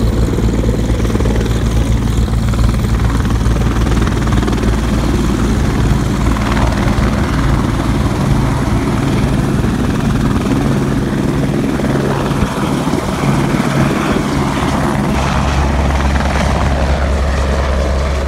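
Light helicopter hovering low and then climbing away, with a continuous loud rotor and engine noise. The low rotor beat grows deeper and stronger near the end as it pulls away.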